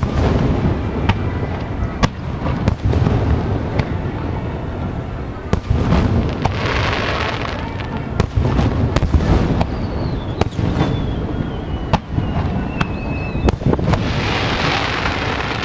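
Aerial fireworks shells bursting in quick succession, sharp bangs over a continuous low booming rumble. Crackling, hissing showers swell around seven seconds and again near the end. A whistling shell glides down in pitch from about ten to thirteen seconds.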